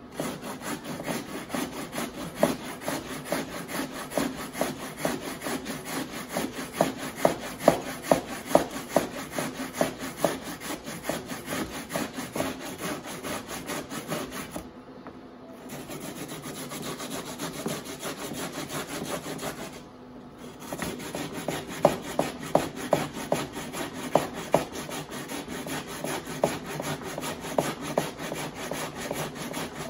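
Raw potatoes being grated by hand on a wire-mesh grater, repeated rasping strokes about two a second, with brief pauses about halfway through and again a little later. This is the grating of potatoes for poutines râpées.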